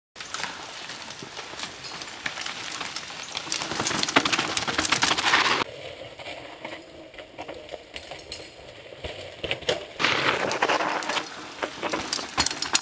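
Mountain bikes coming down a rocky trail: tyres crackling over dry leaves and rock, with clicks and rattles from the bikes. About halfway through the sound cuts abruptly to a quieter stretch with a faint steady high tone, then back to the louder crackling trail noise for the last few seconds.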